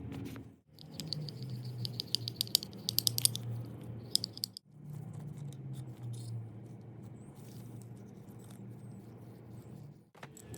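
Small metal lathe parts being handled during reassembly: a quick run of light metallic clicks and rattles from about one to three and a half seconds in, over a low steady hum.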